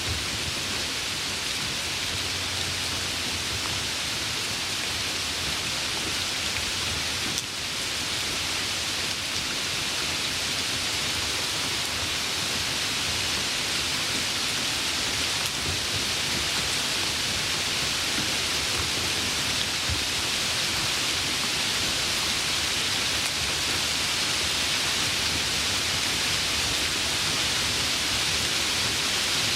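Steady rain falling, an even hiss with a brief dip about seven seconds in.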